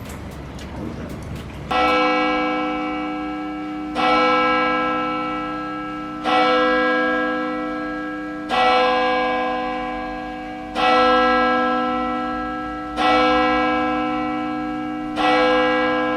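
A heavy bell tolling: seven strokes about two and a quarter seconds apart, starting about two seconds in, each ringing on with many overtones and slowly fading.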